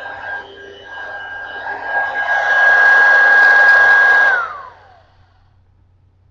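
Dirt Devil 500 hand vacuum's motor running with a steady whine over the rush of air, getting louder about two seconds in as it is lifted off the carpet. A little past four seconds in it is switched off, and the whine falls away as the motor spins down.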